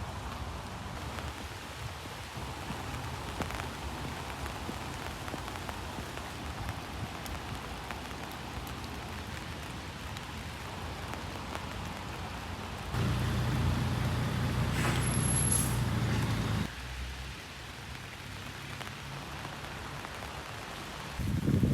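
Steady rain ambience with a low vehicle rumble underneath. About two-thirds of the way through, a louder low hum cuts in for a few seconds and then cuts out suddenly.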